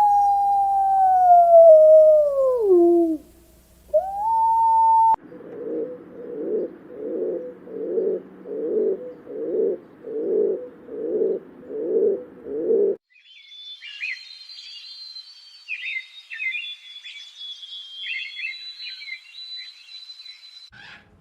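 A run of bird calls: a long whistled call sliding down in pitch, starting again briefly, then a series of about eight low cooing calls at roughly one a second, then quick high chirping and trilling.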